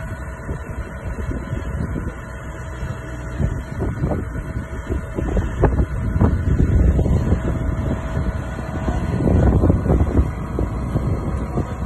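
Vertical feed mixer wagon running: a steady low machine rumble with irregular knocks and rattles, growing louder about nine seconds in.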